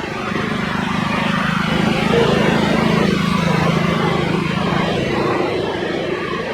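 Jet airliner's engines passing close by, the rumble swelling to a peak a couple of seconds in and then easing off with a slight drop in pitch.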